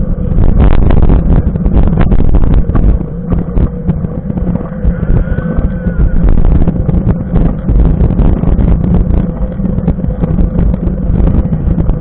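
Wind rumbling and buffeting on the microphone of a camera riding on a moving mountain bike, with a steady hum from knobby tyres rolling on asphalt.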